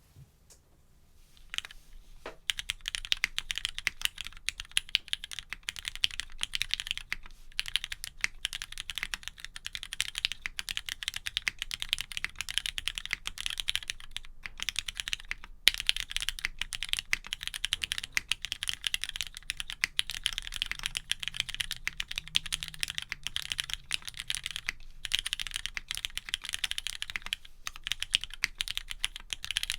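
Fast continuous typing on a Geon Works F1-8X custom mechanical keyboard with a polycarbonate bottom, lubed Cherry MX Black linear switches and PBT keycaps. It starts with a couple of single keystrokes after a quiet second or two, then becomes a dense stream of keystroke clacks broken by a few brief pauses, with one louder stroke about halfway through.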